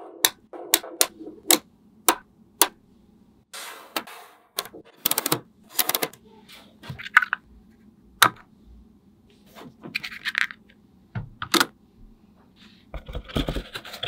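Small magnetic balls clicking as they snap together: sharp single clicks and a few quick rattling runs of clicks as pieces are set in place, with some rubbing and light knocks near the end.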